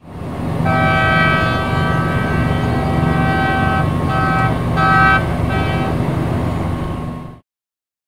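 A NY Waterway ferry's ship horn sounds one long blast of about three seconds, then three short blasts, over a steady low rumble. Under the inland rules of the road, this is the signal for a ferry leaving its berth and then backing astern. The sound cuts off abruptly near the end.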